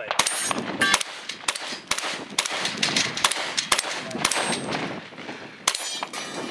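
Semi-automatic Benelli M2 shotgun fired in a fast string, about two shots a second with one short pause, the steel targets ringing after several hits.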